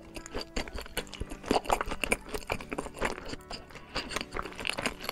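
Close-up wet chewing and lip smacking of a mouthful of salmon nigiri topped with caviar, heard as a quick run of small clicks. Steady background music plays under it.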